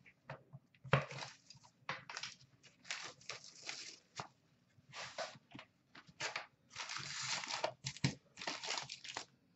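Wrapping of a sealed hockey-card hobby box and its packs being ripped open and crinkled by hand: a run of short, irregular tearing and crackling sounds, with one longer rip about seven seconds in.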